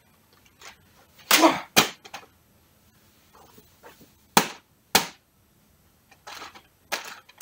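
Sword strikes at a popcorn bag: a swish about a second in, then sharp smacks, two of them about half a second apart around four seconds in and another near the end.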